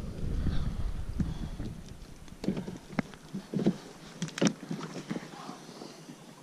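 Low wind rumble on the microphone, fading over the first couple of seconds, then a handful of scattered sharp clicks and taps, the loudest about four seconds in.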